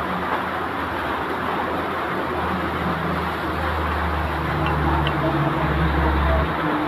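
Steady rain hiss with a truck engine's low drone underneath, growing louder past the middle and easing off near the end.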